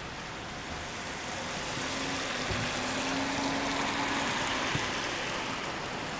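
Steady rain on a street with a car driving past on the wet road: its tyre hiss swells over a couple of seconds with a faint engine hum, then eases off.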